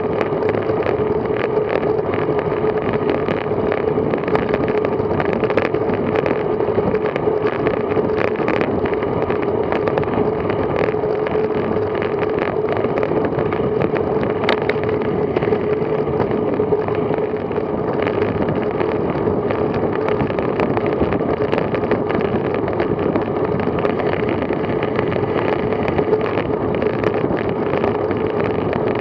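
Steady rush of wind over the microphone and tyre noise from a road bicycle riding at about 22 mph, with a constant hum under it and small scattered ticks from the road.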